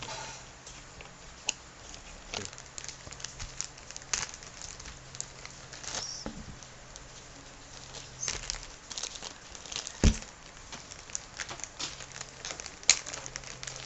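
Plastic toy pieces and packaging of a Play-Doh kit being handled: scattered light clicks, rustles and crinkles, with two sharper knocks about ten and thirteen seconds in.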